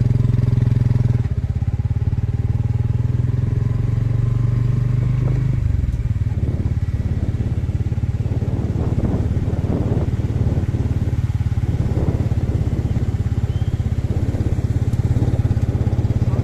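A vehicle engine running steadily, with a dense, even throb; its low note shifts about five and a half seconds in, as with a change of speed or gear.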